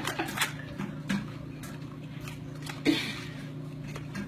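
Wrapping paper crinkling and small cardboard gift boxes being handled and opened, with a few light taps and crackles.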